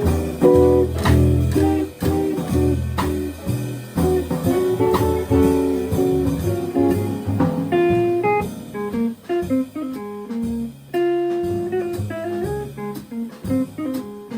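Jazz quartet playing: guitar to the fore over piano, upright-style bass and drums. About halfway through the texture thins, leaving sparser single guitar notes over the bass line.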